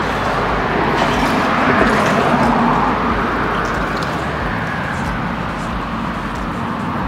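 Road traffic crossing a bridge overhead: a steady rush of tyre noise that swells about two seconds in and then eases off a little.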